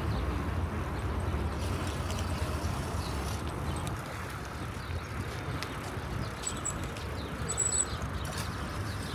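Outdoor walking ambience: a steady low rumble of wind and distant traffic, with faint footsteps on paving.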